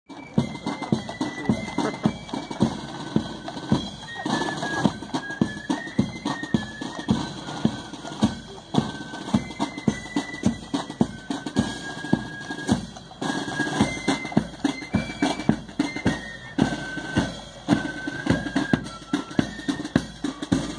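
A marching corps of drums playing: a high fife melody over snare and bass drums beating a steady march rhythm.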